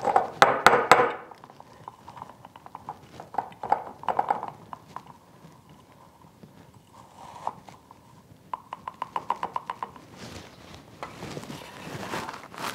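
Dry crumbled freeze-dried egg crackling and rattling as it is pressed through a silicone funnel into a glass mason jar, with scattered knocks on the funnel and jar. A quick run of light taps, about eight a second, comes near the end.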